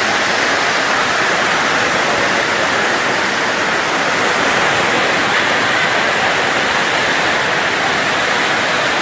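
Torrent of rainwater pouring through a collapsed section of arena roof and cascading down the concrete steps of the stands, a loud steady rush.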